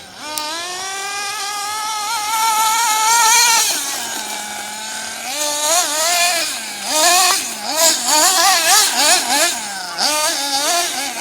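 GS Storm Evolution 1/8 nitro buggy's 3.0 cc engine revving at high pitch: a long climb, a drop to a lower steady tone about four seconds in, then a run of quick throttle blips rising and falling.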